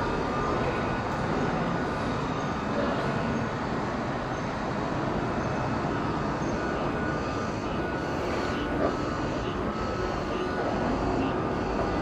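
Steady rumbling background noise with no clear rhythm or pitch, and a single soft knock about nine seconds in.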